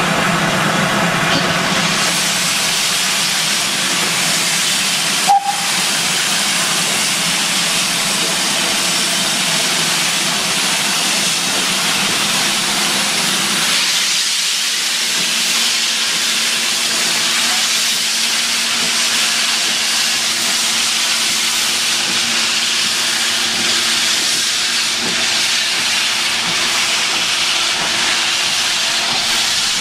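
GWR Hall-class 4-6-0 steam locomotive No. 4953 blowing steam from its open cylinder drain cocks, a loud steady hiss, as it pulls slowly away. A short sharp sound cuts in about five seconds in.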